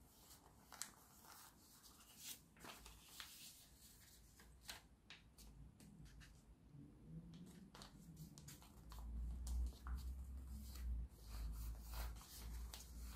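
Paper rustling and crinkling as a sheet is folded and creased by hand, in faint scattered short crackles. From about nine seconds in a low rumble joins.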